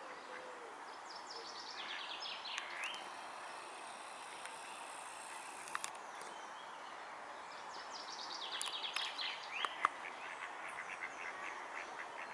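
Wild birds calling over a steady outdoor hiss: quick runs of high, chirping notes about two seconds in and again from about eight seconds on, with a couple of sharp clicks.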